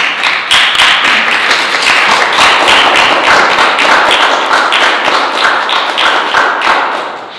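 Audience applauding, a dense spell of many hands clapping that dies away near the end.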